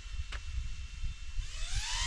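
Flywoo Flylens 85 FPV drone's brushless motors with Gemfan Hurricane three-bladed props spinning up near the end, a rising whine, after a low rumble and a single click.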